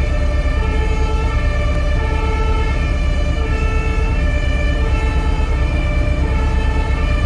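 Emergency vehicle's two-tone siren, the German hi-lo kind, switching between a lower and a higher note about every two-thirds of a second over a steady low rumble.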